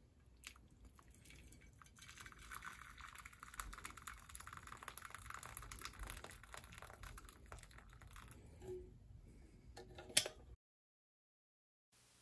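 Faint water running from a hand-held spout into a glass baking dish, filling it, then fading out. A sharp click follows near the end.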